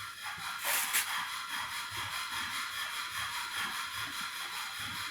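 Steady hiss with a brief scraping rustle about a second in.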